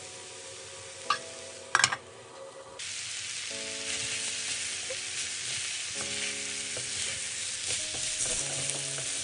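Chicken keema and diced potatoes sizzling in a frying pan on high heat while being stirred with a wooden spatula, as the water released from the potatoes cooks off. A couple of sharp knocks come about one to two seconds in, and the sizzling gets louder from about three seconds in.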